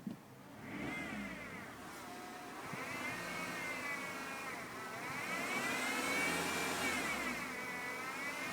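Dynamo-like whine in a Peugeot 206 while driving, many even tones that rise and fall in pitch several times as speed changes and grow louder towards the end; the auxiliary drive belt has already been replaced and did not cure it. A short click at the very start.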